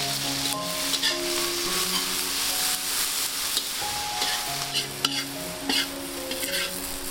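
Chopped climbing wattle greens sizzling in a hot wok while being stir-fried, with a spatula scraping and knocking against the wok several times.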